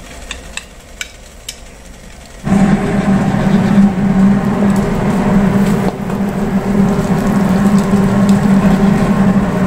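Egg omelette frying in a nonstick pan, with a few light clicks of a spatula against the pan. About two and a half seconds in, a loud steady hum comes in suddenly under the sizzle and holds.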